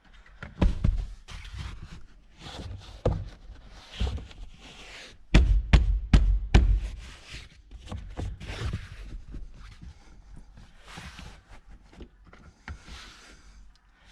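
Hand work on car interior trim and parts: an irregular run of knocks, clicks and rustles, with a cluster of sharp, louder knocks about five and a half to six and a half seconds in.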